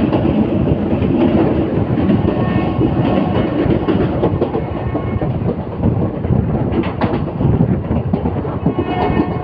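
Passenger train running along the track, heard from on board: a steady rumble with the clickety-clack rattle of wheels on rails and one sharper clank about seven seconds in.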